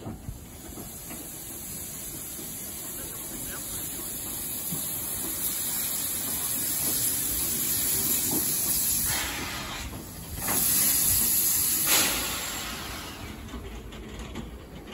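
Small steam tram locomotive hissing steam as it runs slowly in, the hiss growing louder as it draws near. A louder burst of steam comes about two thirds of the way through, then the hiss falls away near the end.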